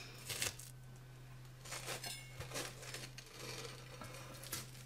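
Faint scrapes and light knocks of a knife worked around the inside of a baking dish and the dish being tipped over onto a plate to turn out a baked pâté, over a low steady hum.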